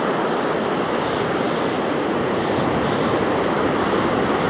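Small waves breaking and washing up a sandy beach, a steady rushing surf, with wind on the microphone.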